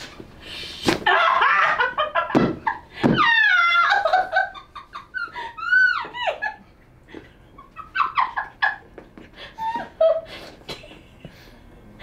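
A person laughing and letting out high-pitched squeals and cries in several separate outbursts, reacting as a chiropractor presses on an out-of-place rib.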